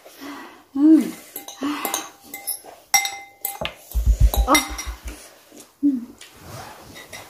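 Eating utensils clinking and scraping against a bowl as spicy instant noodles are eaten, in many short irregular clinks. A low rumbling thud comes about four seconds in.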